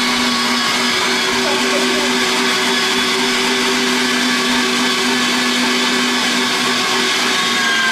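Electric meat grinder running steadily, its motor humming while it minces pieces of raw chicken fed into it.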